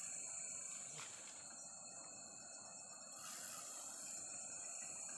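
Steady, high-pitched chorus of night insects, a constant shrill drone over a faint outdoor hiss, with one faint tick about a second in.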